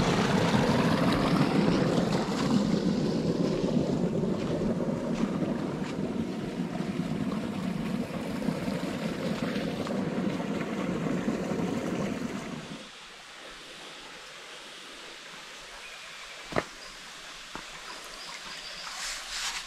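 Creek water running and splashing over a small sandy drop, a steady rush that cuts off suddenly about two-thirds of the way through, leaving a much quieter background with a sharp click a few seconds later.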